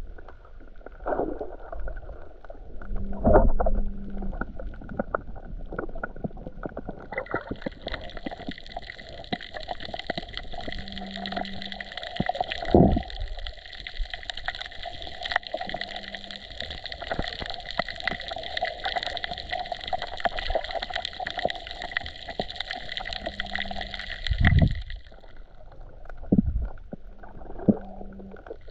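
Underwater sound picked up by a camera held just below the surface of the sea: a continuous crackle of small clicks, with a few low thumps. A steady whine comes in about a quarter of the way through and stops near the end.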